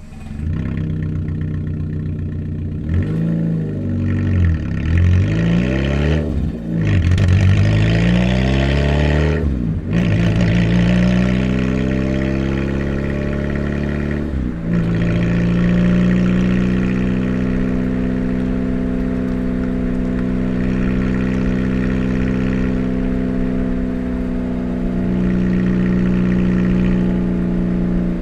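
Car engine with a damaged exhaust pipe, very noisy. It is revved up and down several times in the first ten seconds, dips briefly about fourteen seconds in, then runs at a steady speed.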